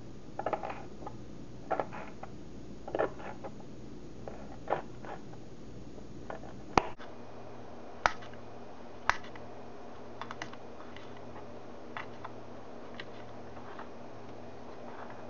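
Small kitchen knife tapping on a plastic cutting board while dicing a jalapeño: irregular light taps, with a few sharper clicks about halfway through and after.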